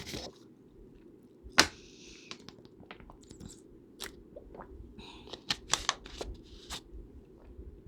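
Eating sounds: chewing and crunchy bites, with a sharp click about one and a half seconds in and a quick run of clicks around five to six seconds in.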